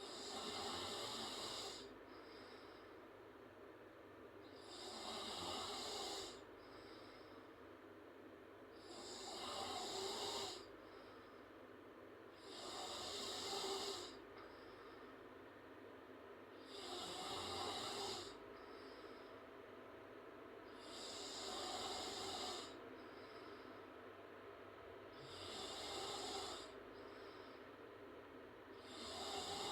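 A woman snoring loudly through an open mouth, one breathy snore about every four seconds, each lasting a second or two, with a faint short breath between them.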